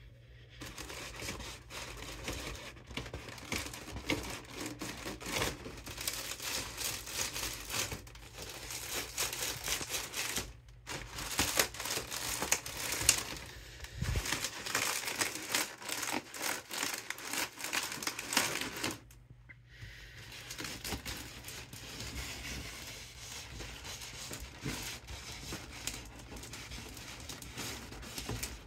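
Mylar foil balloon crinkling and crackling as hands squeeze and press it to push the air out, with two short pauses.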